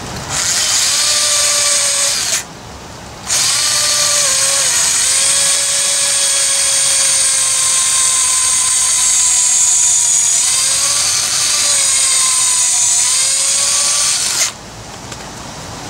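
Handheld electric drill boring out the old wooden handle stuck in a sledgehammer head's eye. It runs steadily, stops for under a second about two and a half seconds in, then runs again until near the end, its pitch dipping slightly now and then as the bit loads up.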